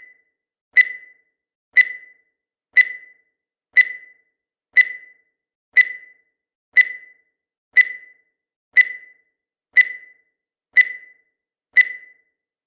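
Countdown timer sound effect beeping once a second: about twelve short, evenly spaced beeps at one high pitch, each sharp at the start and dying away quickly.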